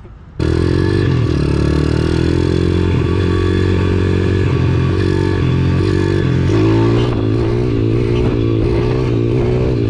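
Several pit bikes' small single-cylinder engines running together at once, starting abruptly about half a second in. They hold a fairly steady speed at first, then the pitch wavers up and down through the second half as the throttles are worked.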